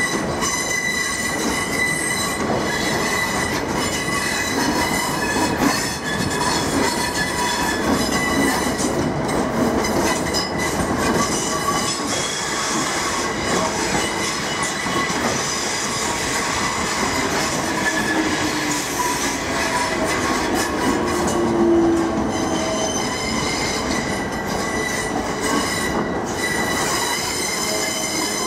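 Wheels of a South Western Railway Class 455 electric multiple unit squealing as the train moves through station pointwork, several high steady squeal tones over the running noise, with occasional clicks of the wheels over rail joints.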